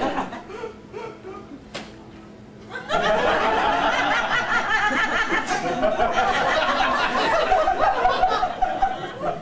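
An audience laughing loudly, starting about three seconds in and carrying on.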